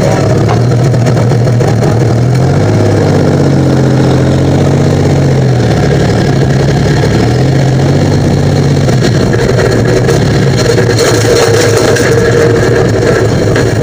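Pulling tractor's engine with twin upright exhaust stacks running at low speed, heard up close from on board. Its pitch rises and falls gently a few times in the first half as the throttle shifts, then it runs on rougher.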